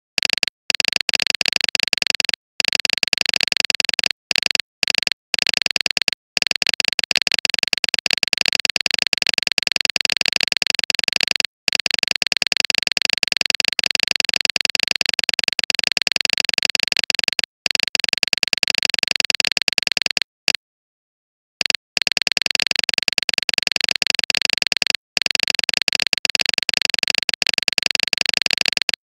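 Background music that cuts out briefly several times, with the longest break of about a second roughly two-thirds of the way through.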